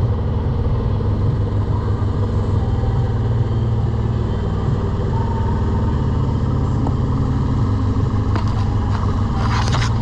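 A sailing yacht's inboard engine runs with a steady, low rumble while motoring. A few sharp knocks sound near the end.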